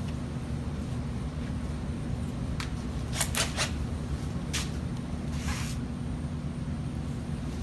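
A few light clicks and knocks from small tools and parts being handled, several close together about three seconds in, over a steady low hum of shop background.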